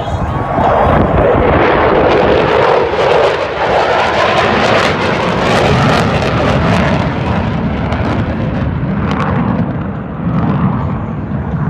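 Jet noise from two U.S. Air Force Thunderbirds F-16 fighter jets passing overhead. It swells about a second in, stays loud and crackling for several seconds, then eases off near the end.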